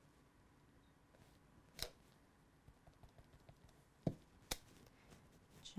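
Near silence broken by a few light taps of a clear acrylic stamp block being set down on cardstock: one about two seconds in, then two more close together near four seconds in.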